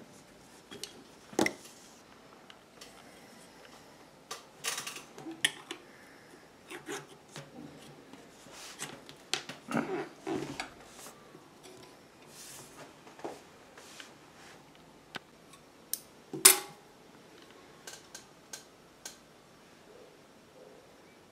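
Scattered metallic clicks and clinks as metal parts and tools are handled on a Pfaff 1245 industrial sewing machine, such as a slide plate being set onto the machine bed. The clicks come at uneven intervals, with sharper ones about a second and a half in and again about sixteen seconds in. The machine itself is not running.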